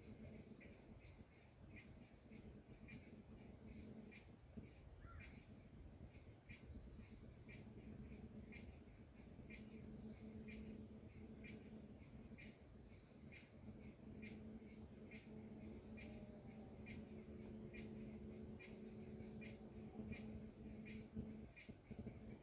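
Forest insects calling faintly. One holds a steady high-pitched trill while another chirps at an even pace, about three chirps every two seconds.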